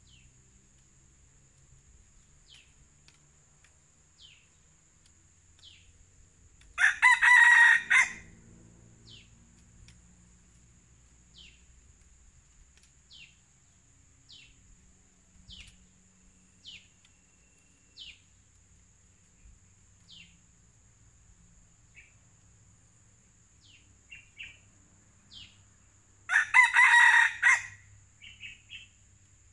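Red junglefowl rooster crowing twice, two short crows about twenty seconds apart, the first about seven seconds in and the second near the end. Between them come faint short bird chirps and a steady high insect whine.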